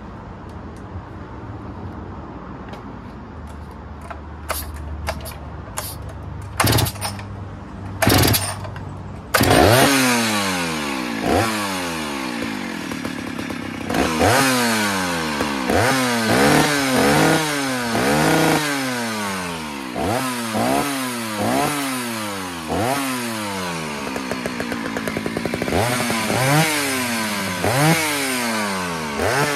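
Stihl 051 AV 89 cc two-stroke chainsaw powerhead, with no bar or chain, being pull-started: a few short sharp sounds, then it catches about nine seconds in. It is then revved up and down over and over, the pitch rising and falling roughly once a second. It has a freshly rebuilt top end (new piston and rings) and the owner says it sounds good.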